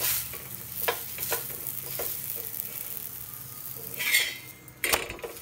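Ghee sizzling under a thick wheat chapati being lightly roasted on a hot griddle pan. A metal spatula presses and turns it against the pan, giving a few clicks early, a louder scrape about four seconds in, and a sharp knock near the end.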